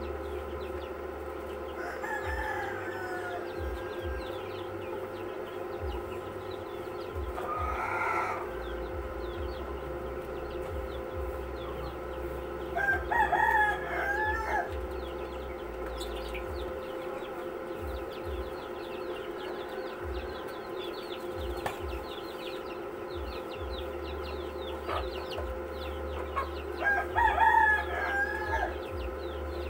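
Roosters crowing several times, the loudest crows about halfway through and near the end, over a steady low hum.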